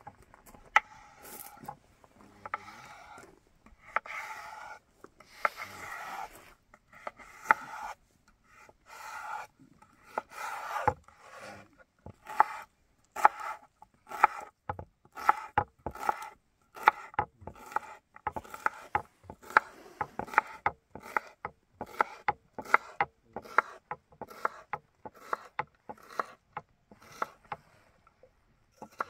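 Repeated rasping strokes, each starting with a sharp click. They are slow and drawn-out at first, then settle into about two strokes a second.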